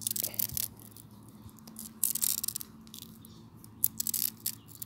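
Filament strapping tape peeling off its roll as it is wound tightly around a cracked fiberglass tent pole: short crackling rips of tape in three bursts about two seconds apart, over a faint steady low hum.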